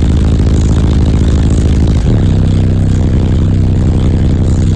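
Loud, bass-heavy music played through a high-power car-audio subwoofer system, heard from inside the truck's cab. The bass note falls and changes about two seconds in.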